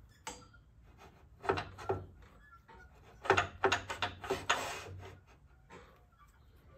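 A square wooden blank in a four-jaw lathe chuck being rotated by hand with the lathe off: a few faint short scrapes and knocks, two about a second and a half in and a quick cluster in the middle.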